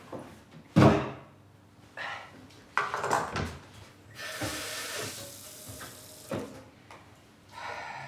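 Knocks and clatter of things being handled at a kitchen counter and sink, with one loud bang about a second in and a spell of hissing in the middle.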